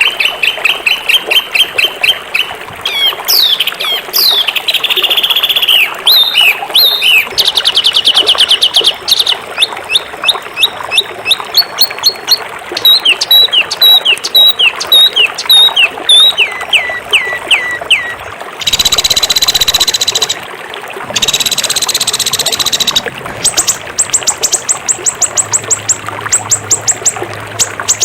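Songbird singing in rapid, varied phrases: fast trills, quick repeated chirps and downward-sliding whistled notes, broken about two-thirds through by two harsh buzzy bursts.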